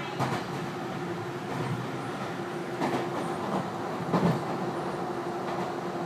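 Tobu 50090 series commuter train running at speed, heard from inside the passenger car: a steady rumble and hum, with the wheels knocking over rail joints three times.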